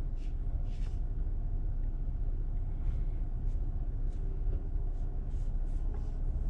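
Low, steady rumble of a car heard from inside the cabin, with a few faint light clicks.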